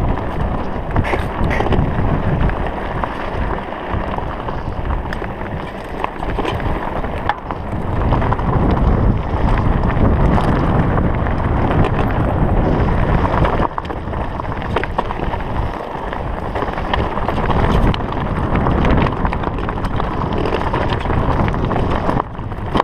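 Wind rushing over an action camera's microphone as a mountain bike descends a rocky trail, with scattered knocks and rattles from the tyres and bike over loose stones.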